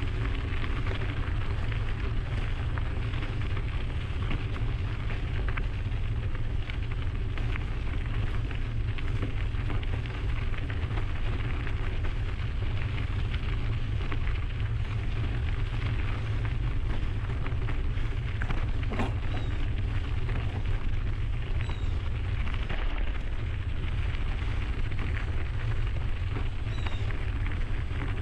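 Mountain bike riding along a trail: the tyres give a steady crackling crunch over the path surface, with small rattles and a low wind rumble on the microphone throughout.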